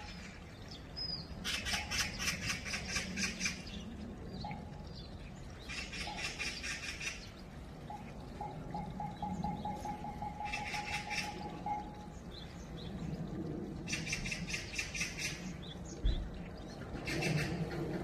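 Oriental magpie chattering: five bouts of harsh, rapid rattling calls, each lasting one to two seconds.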